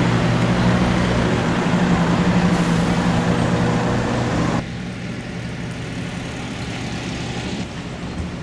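Bus engine drone and road noise heard from inside a moving bus. About halfway through it cuts off suddenly to quieter, steady street noise.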